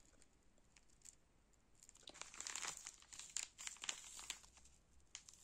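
Plastic powder stick-pack sachets crinkling as they are handled, in faint, irregular rustles that cluster from about two seconds in.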